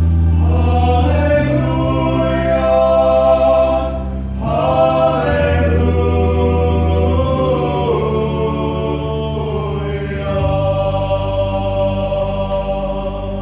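Small men's vocal ensemble singing slow, long-held chords together, the harmony shifting every couple of seconds.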